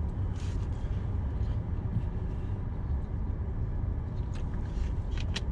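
Steady low rumble of a car's idling engine heard inside the cabin, with a few faint clicks from a plastic water bottle being drunk from.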